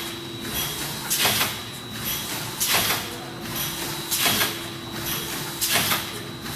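Double-lane horizontal form-fill-seal pouch packing machine running, with a sharp hissing burst about every one and a half seconds and smaller ones in between over a steady hum, each burst marking one cycle of the machine.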